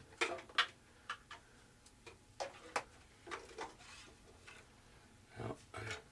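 Scattered light clicks and taps at an uneven pace, from hands handling the parts and wiring of a model airplane; two sharper clicks come just after the start.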